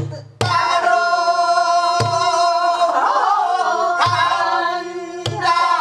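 Pansori singing: a woman holds a long, wavering sung note, marked by strokes on a buk barrel drum at the start, about two seconds in, about four seconds in and again shortly after five seconds.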